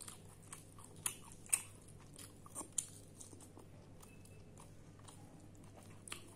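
Close-up chewing of a mouthful of chicken curry, with wet lip smacks and sharp mouth clicks, most of them in the first three seconds and one more near the end.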